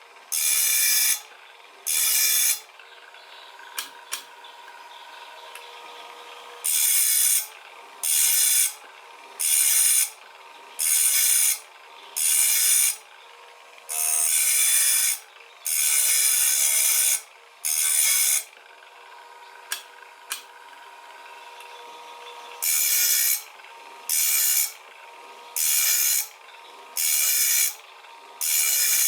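Grinding wheel of a Wipro PPM-03 saw-sharpening machine grinding the teeth of a circular saw blade one after another: a harsh grinding burst of under a second, about once a second, with the motor humming steadily between strokes. The grinding stops twice for a few seconds, leaving only the hum and a couple of clicks.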